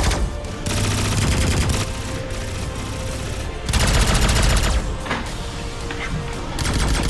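Bursts of rapid-fire machine-gun sound effects laid over toy blaster fire, with background music underneath. The volleys come right at the start, again about a second in, around four seconds in, and once more near the end.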